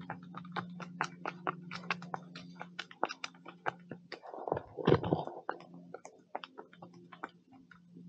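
Dry leaf litter crackling and crunching underfoot in many small irregular clicks, over a faint steady low hum, with a louder rustle about four and a half seconds in.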